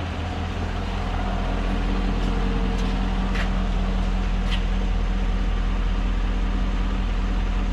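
2015 GMC Yukon's V8 engine idling steadily, growing slightly louder about a second in, with a few faint ticks over the hum.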